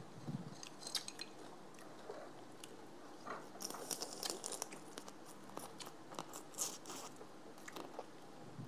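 Close-miked chewing and crunching of raw green papaya salad, with irregular crisp crunches that come thickest about halfway through and again a little later.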